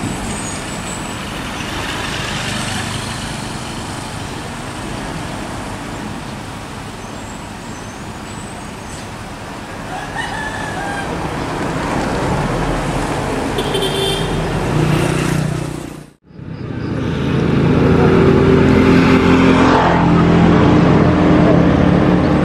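Road traffic at a junction, then, after a cut, a large bus's diesel engine running loud as the coach drives toward the listener.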